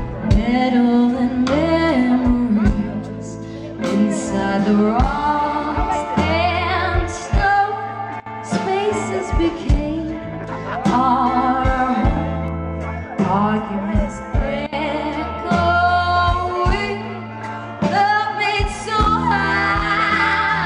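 Live band music with a woman singing lead over held bass notes, her long sung notes wavering in vibrato.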